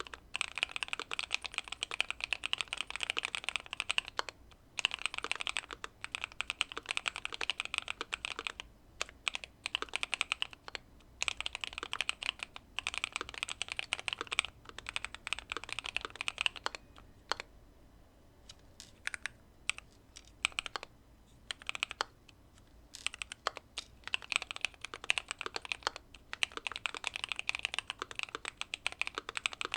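Typing on a Keychron Q2 mechanical keyboard with factory-lubed Pearl Lemon switches, tape-modded and case-foamed: fast runs of keystrokes broken by short pauses, with a couple of slower, sparser stretches a little past the middle.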